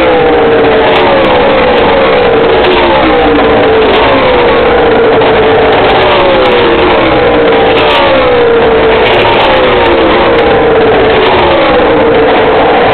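NASCAR stock cars' V8 engines at racing speed passing the grandstand in a steady stream, loud throughout, each engine's pitch dropping as it goes by, about one car a second.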